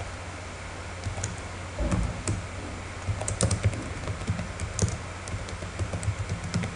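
Typing on a computer keyboard: irregular key clicks in short runs, starting about a second in, over a steady low hum.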